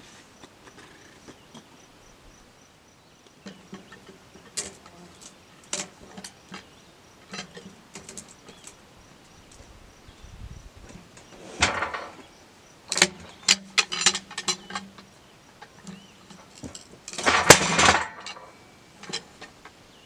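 A large ash log being levered and rolled over on a steel sawmill bed with a cant hook: scattered knocks, clanks and scrapes of wood and steel. The two loudest bursts of knocking and scraping, about midway and about three seconds before the end, come as the log turns.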